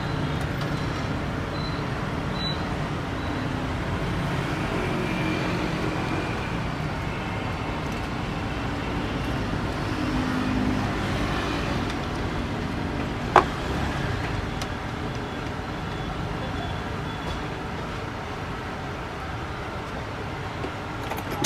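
Steady city street traffic noise, with a single sharp clink about thirteen seconds in.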